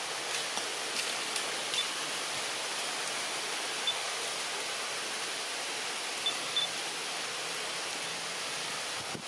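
Steady, even outdoor background hiss, with a few short, faint high chirps scattered through it.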